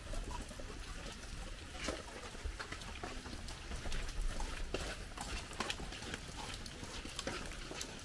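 Footsteps of someone walking, a sharp step every half second to second, over a low rumble.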